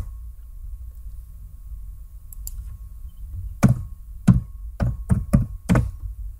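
Computer keyboard typing: about six short key clicks in the second half. Before them there is only a faint low hum.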